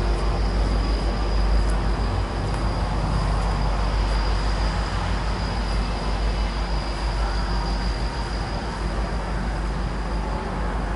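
Metro-North F40PH diesel locomotive running with a steady low rumble as it leads a passenger train slowly toward the station.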